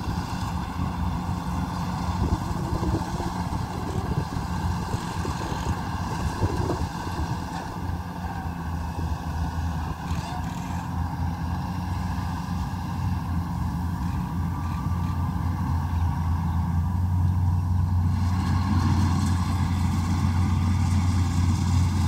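Combine harvester's diesel engine running steadily at working speed, a low hum that grows a little louder over the last few seconds.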